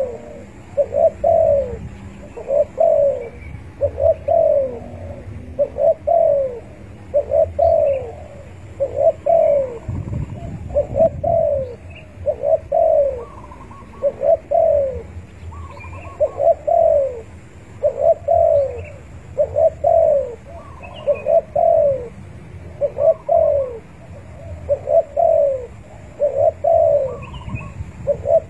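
Spotted dove (tekukur) cooing, a male's call to a rival: a steady string of short coo phrases about once a second, each falling in pitch.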